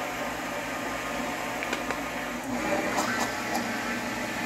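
Electric blender running steadily, whipping milk, garlic and oil into a thick garlic cream. Its hum shifts in pitch about halfway through.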